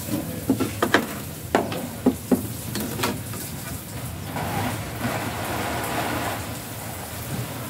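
A handful of sharp clicks and snaps as the cable connectors and the flat TV's main control board are worked loose, then a scraping rustle at about the fifth to sixth second as the board is slid out of its metal chassis bracket.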